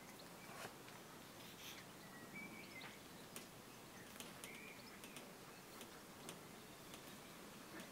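Near silence: faint room tone with scattered small clicks and a couple of faint short chirps.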